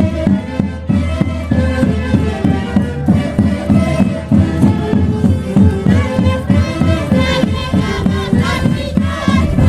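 An Andean orquesta típica from Huancayo playing a Santiago live, with wind instruments carrying the melody over a steady driving beat.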